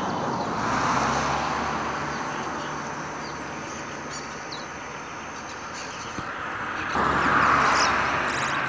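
Motor vehicles passing on a nearby road, swelling about a second in and again around seven to eight seconds in. A few faint short chirps come from the caged twa-twa seed finches between the passes.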